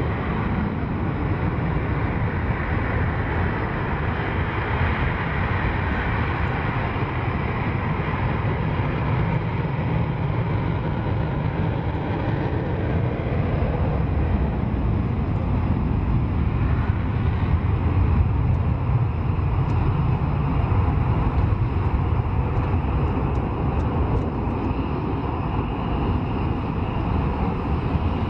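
Panavia Tornado's twin RB199 turbofans in full afterburner on the takeoff roll: steady, loud jet noise that grows a little louder past the middle.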